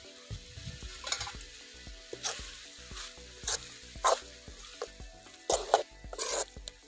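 A steel spoon stirring chicken fry in a riveted aluminium kadai, scraping the pan bottom in several irregular strokes, with the masala sizzling faintly underneath.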